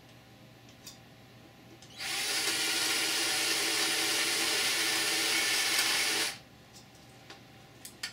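Power drill with an oversized bit running steadily for about four seconds, starting about two seconds in and stopping abruptly, as it widens a bolt hole in plexiglass to countersink it.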